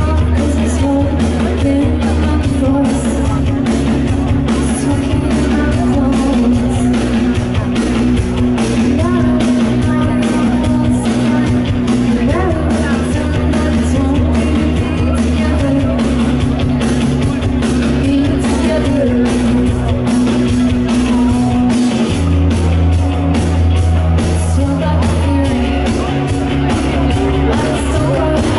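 Live rock band playing: a woman's lead vocals over electric guitar, bass and drums with a steady beat. The bass notes change about three-quarters of the way through.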